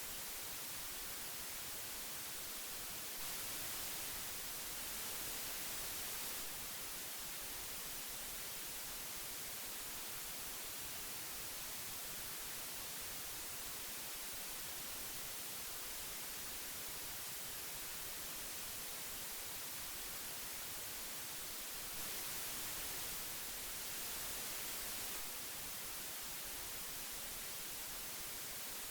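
Old magnetic tape hiss: a steady, even hiss weighted toward the high end, with no tones in it, swelling slightly twice.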